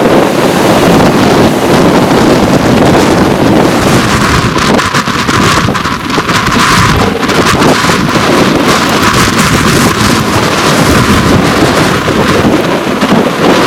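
Strong wind blasting the microphone, rising and falling in gusts, over heavy storm surf breaking on a sandy beach.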